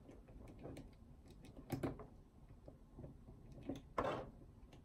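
Faint plastic clicking and handling noise as a translucent plastic breath-effect piece is worked into an action figure's mouth, with two sharper clicks, one a little under two seconds in and one near the end.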